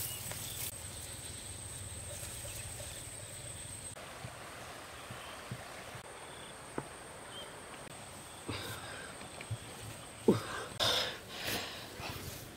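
Rural field ambience with a steady high-pitched insect whine. From about two-thirds of the way in come scattered scuffs, scrapes and soft knocks of hands digging and scooping dry sandy soil out of a hole.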